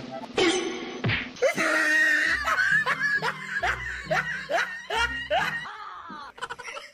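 Laughter in a run of short, quick bursts, about three a second, starting about a second and a half in and dying away near the end.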